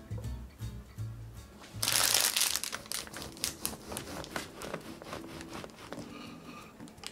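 Bread knife sawing through the hard crust of a loaf, with a loud crunch about two seconds in followed by a run of sharp crackles as the blade works through.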